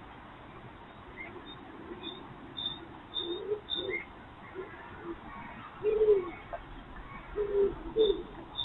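Common cuckoo calling its low two-note 'cuck-oo' several times, starting about three seconds in. Faint high chirps of a smaller bird sound alongside.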